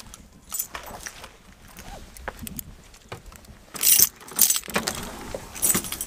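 A bunch of keys jangling in a door lock as the door is unlocked and opened, with scattered clicks and knocks. The loudest jangles come about four seconds in and again near the end.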